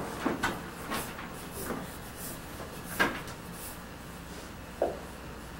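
Pencil strokes scratching softly on drawing paper, with a few light knocks and bumps, the loudest about three seconds in.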